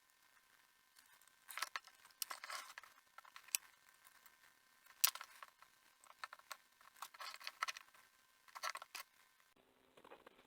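Light clicks, taps and short scrapes of small metal parts being handled while an HO scale metal model locomotive is disassembled, coming in scattered bunches.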